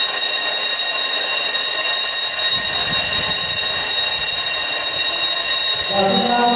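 Loud, steady, high-pitched alarm tone held at one pitch throughout.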